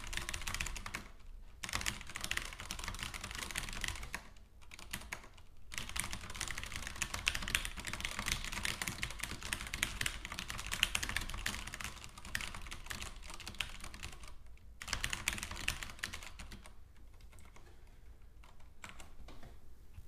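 Typing on a Durgod Taurus K320 mechanical keyboard with Cherry MX Red switches: a dense stream of key clacks in runs. There are short pauses about one and a half, five and fourteen and a half seconds in, and the keystrokes turn lighter and sparser near the end.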